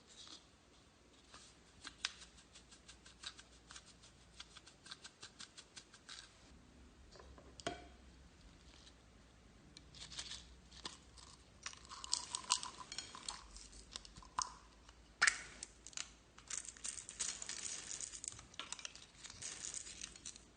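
Slime being worked by hand: a run of small quick clicks and pops for the first few seconds, then about ten seconds of denser crackling and crinkling.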